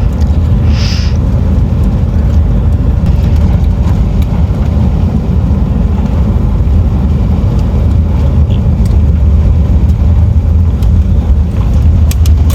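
Van cabin noise while driving slowly over a rough, bumpy paved road: a steady low engine and road drone with a few light rattles and clicks. There is a short high squeak about a second in and a cluster of clicks near the end.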